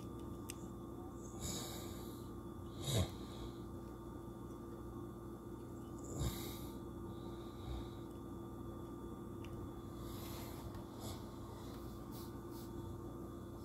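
Quiet room tone with a steady hum, broken by about four short, breathy nasal breaths close to the microphone, the loudest about three seconds in.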